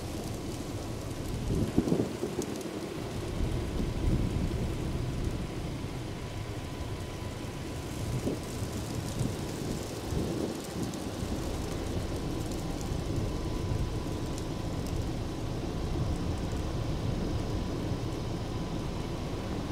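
Wind buffeting the camera microphone: gusty low rumbling that swells about two seconds in, with faint scattered ticks over it.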